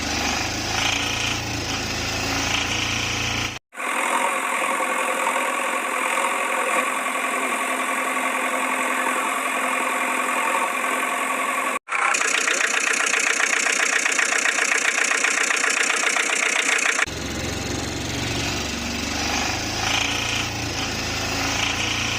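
Vehicle engine running, heard as several spliced segments with abrupt cuts about 3.5, 12 and 17 seconds in. The stretch from 12 to 17 seconds is louder, with a fast, even chatter.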